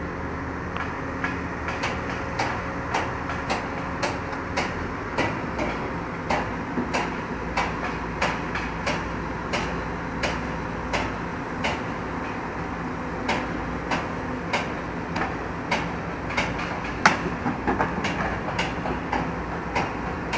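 Diesel machinery running steadily, with sharp ticks repeating about twice a second and one louder knock late on.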